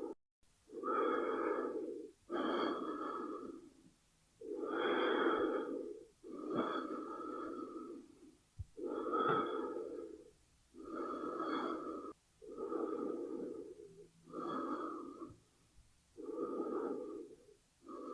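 A person breathing slowly and audibly, in and out through the airway: about ten breath sounds, each lasting a second or two, with short pauses between them.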